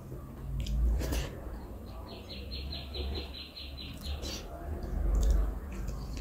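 Close-miked eating by hand: rice squished and gathered on a plate, then mouthfuls taken and chewed, with low thuds and short wet clicks. A run of about a dozen rapid high chirps, about five a second, sounds in the background near the middle.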